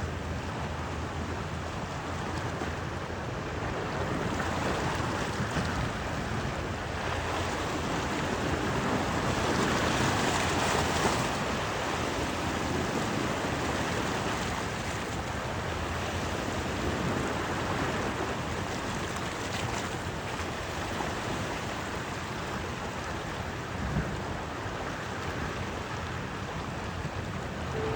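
Wind on the microphone over waves washing, a steady rushing noise that swells to its loudest about ten seconds in.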